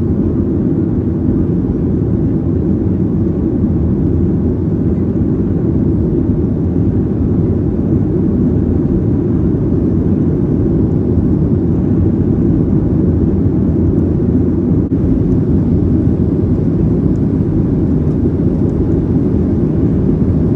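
Jet engine roar inside the cabin of a Boeing 737-800, its twin CFM56-7B27 turbofans at takeoff power through liftoff and the first climb. The noise is a steady, loud, deep rumble with no change in level.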